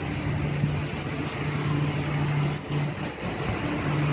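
Bombardier rubber-tyred automated metro train moving slowly past, with a steady low electric hum and rolling noise. The hum drops out briefly a couple of times a little past the middle.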